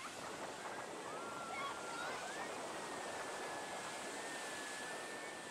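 Ocean surf breaking and washing in the shallows, a steady rushing hiss. A thin high tone joins about a second in, wavering upward at first and then held steady, and cuts off near the end.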